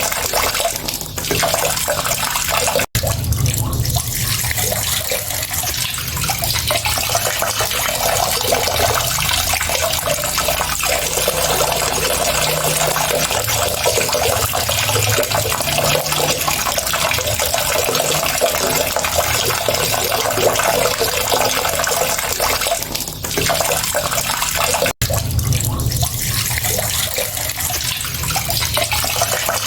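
Running water pouring steadily in an even rush. It cuts out for an instant twice, a few seconds in and again about five seconds before the end, where the loop seems to restart.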